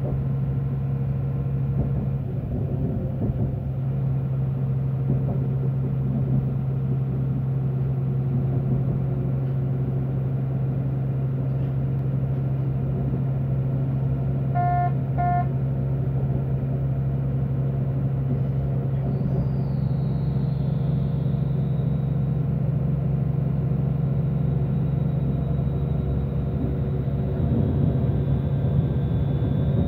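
Running sound inside the passenger cabin of an ÖBB class 5022 Desiro diesel railcar under way: a steady engine drone over the rumble of wheels on track. About halfway through come two short beeps, and a faint high whine joins later.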